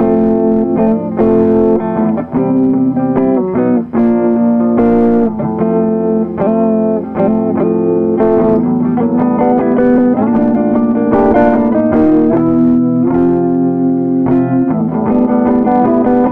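A 2011 Gibson SG Classic electric guitar with P-90 pickups played through a Teisco Checkmate 25 amp head and a Jensen speaker. It plays a run of ringing chords and picked notes.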